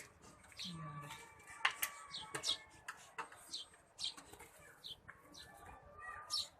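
Small birds chirping over and over, with a chicken clucking in the background. A single sharp click about two seconds in.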